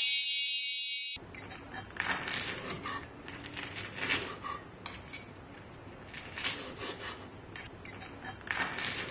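A metallic ringing tone that cuts off abruptly about a second in. Then a knife and fork cut through crisp fried fritters, the blade scraping and tapping on the board in short, irregular strokes.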